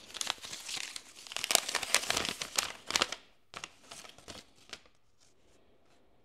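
Packaging being opened and handled, crinkling and tearing in dense irregular crackles for about three seconds, then a few scattered rustles.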